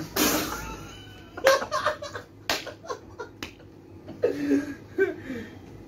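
Several men laughing out loud, with a few sharp claps among the laughs.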